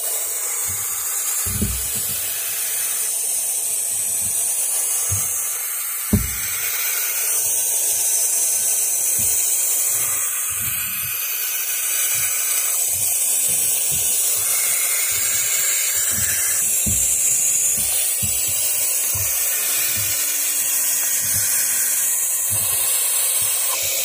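Barn owl chicks hissing continuously, the long breathy food-begging and warning hiss of young Tyto alba, with frequent dull low bumps throughout.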